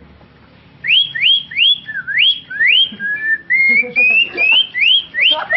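A person whistling an imitation of a greater green leafbird (cucak ijo) song: a quick run of rising whistled notes, about three a second, starting about a second in, with a few longer sliding notes midway.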